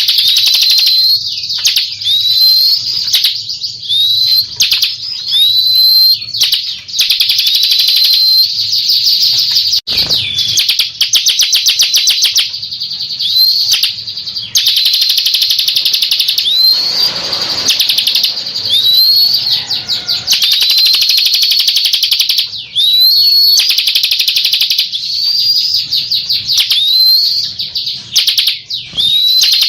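Bar-winged prinia (ciblek) singing loudly: long runs of rapid, buzzy trills, broken by short upswept whistled notes about once a second.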